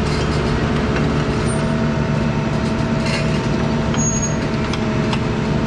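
Diesel engine of a JCB JS220 tracked excavator running steadily with an even low hum, with a few faint clicks over it.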